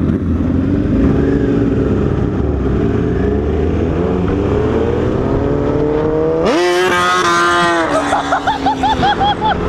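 Sport motorcycle engine accelerating under throttle, its pitch climbing steadily. About two-thirds of the way in the revs jump sharply and hold high. Near the end they rise and fall quickly several times.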